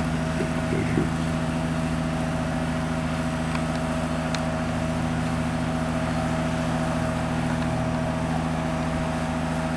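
Vehicle engine idling steadily, an even hum that does not change in pitch or level.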